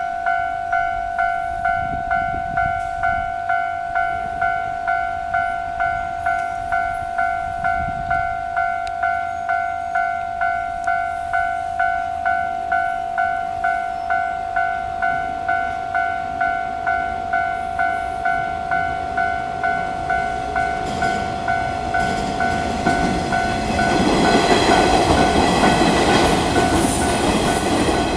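Level-crossing warning bell ringing in an even, repeating beat about one and a half times a second. From about 21 seconds in, a train approaches and passes, its running noise on the rails growing loud near the end while the bell keeps ringing.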